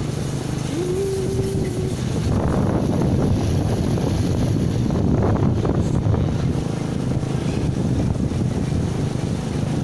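Motorcycle engine running while riding, with wind buffeting the microphone; the rumble gets a little louder a couple of seconds in.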